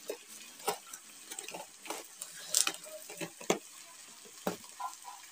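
Potato and fenugreek sabzi frying in an iron kadhai over a wood fire: a faint sizzle with several light clicks and knocks spread irregularly through it.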